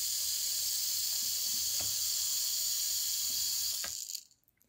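Tiny electric motor of a Think Gizmos Gyro Zoomer mini RC helicopter running with a steady high whirring hiss and a few faint clicks, cutting off about four seconds in. The owner thinks its gear is split and slipping on the motor shaft, so the motor spins while the rotor doesn't.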